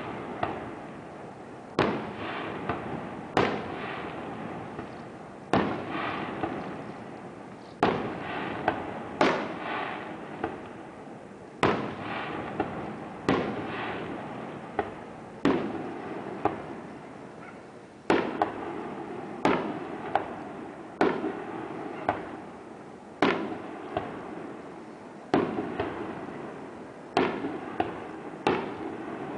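Aerial firework shells bursting one after another, a sharp bang every second or two, each followed by a long rolling echo.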